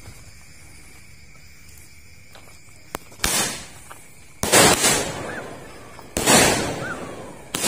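Roman candles firing. After about three seconds of faint fuse hiss, four loud shots come at roughly one-and-a-half-second intervals, each a sudden pop with a rushing tail that dies away.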